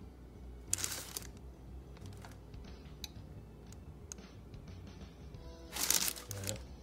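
Two short rustles of baking paper under a small travel iron pressed onto iron-on edge banding, one about a second in and a louder one near the end, over faint steady background music.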